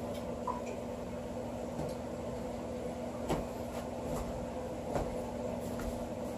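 Steady electrical hum with fixed low tones, with a few light knocks about three and five seconds in.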